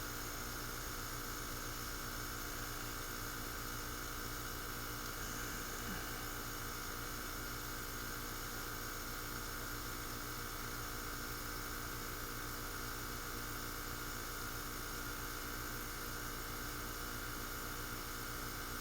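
R-410A heat pump running steadily in heating mode: a constant hum with several held tones and no change in pitch or level.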